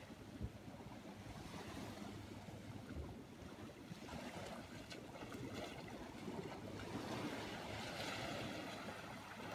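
Small ocean waves breaking and washing up a sandy beach, a steady wash that swells louder near the end. A brief thump about half a second in.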